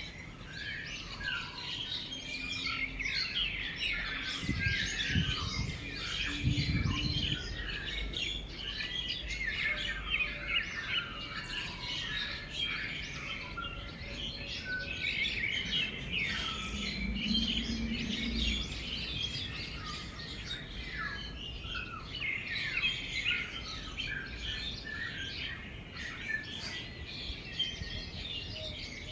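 Many small birds chirping and calling at once: a dense, continuous chorus of short, high notes.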